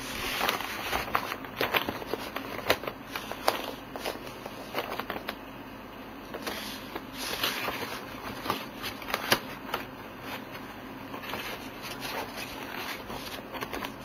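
Paper and packaging rustling and crackling with many sharp, irregular crinkles as a parcel is handled and opened.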